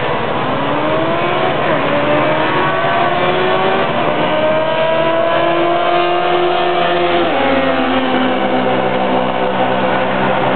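Drag-racing motorcycle accelerating hard down the strip, its engine pitch climbing in steps through gear changes. About seven and a half seconds in the pitch drops suddenly.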